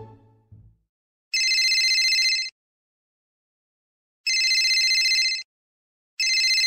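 Telephone ringing: three rings about a second long each, each a high, rapidly warbling trill. The first ring comes about a second in.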